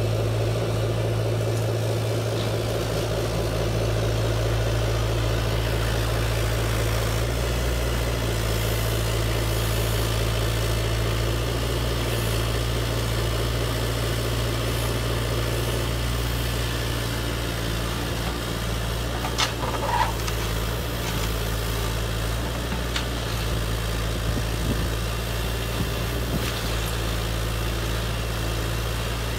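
Hydraulic pump of a large RC hydraulic excavator running steadily, a low even hum that shifts slightly in tone as the arm works. A brief knock sounds about two-thirds of the way in.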